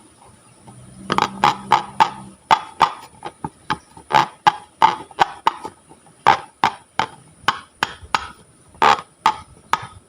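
Slime being pressed and worked by hand, giving a quick series of sharp wet clicks and pops, about two to three a second, starting about a second in.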